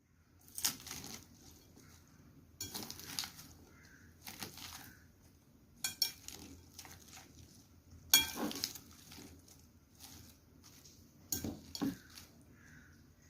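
Kitchen utensils clinking and scraping against dishes in about six short bouts, a second or two apart.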